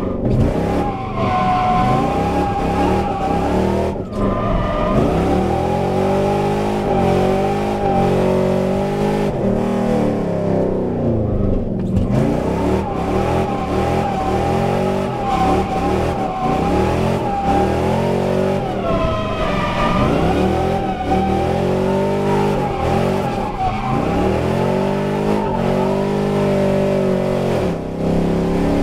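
Drift car's engine revving high and dropping away again and again through a run of drifts, with tyres squealing as the car slides sideways.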